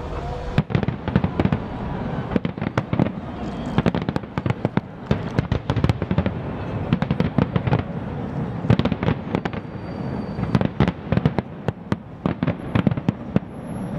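Fireworks display: aerial shells bursting in a dense barrage of bangs and crackles, many reports a second, starting about half a second in.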